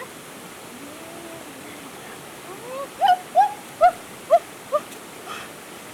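Young crocodiles making short, high chirping calls, about two a second, starting about halfway through, over a steady hiss of running water.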